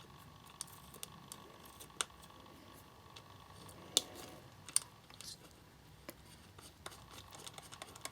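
Faint small clicks and ticks of standoffs being screwed finger-tight by hand into a display driver board, a few sharper clicks standing out about 2, 4 and 5 seconds in.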